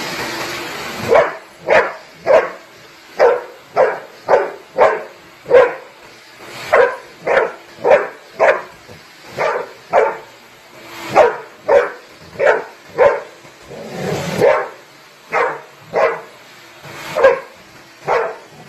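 Golden retriever barking over and over in short, sharp barks, about one to two a second. There is a longer, breathier huff at the start and another about two-thirds of the way through.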